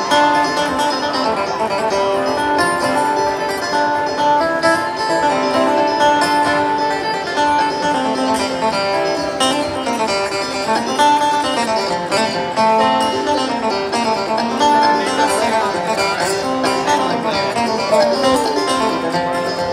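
Live acoustic bluegrass: banjo and acoustic guitar picking a fast tune together through a concert sound system, heard from the audience.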